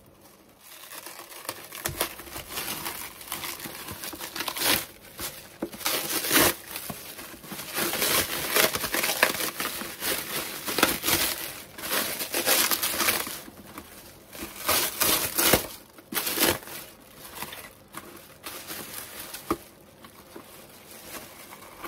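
Plastic cling-film wrapping being pulled off a cardboard parcel by hand, crinkling and rustling in irregular bursts.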